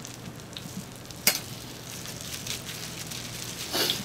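Hotteok frying in oil on a griddle, a steady sizzle with a low hum under it. A sharp knock about a second in and a short rustling burst near the end.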